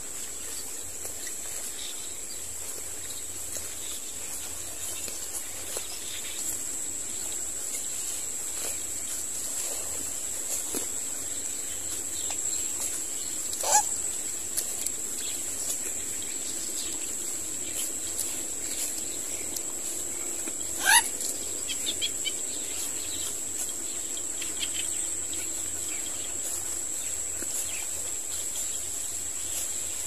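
A steady high-pitched insect drone, like crickets, runs throughout. Two short, sharp bird calls stand out about 14 s and 21 s in, the second louder.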